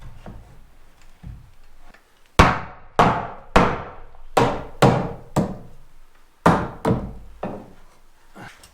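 A hammer striking wood in repeated blows, about two a second: a run of six, a short pause, then three more, each with a short ringing tail, as a 2x4 is fastened into a framed opening.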